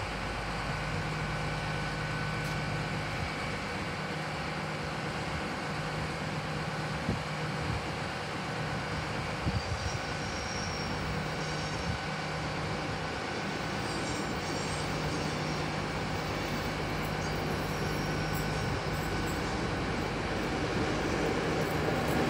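Diesel trains running at the platform: a steady low engine hum, growing louder near the end as the HST power car approaches, with a few faint clicks.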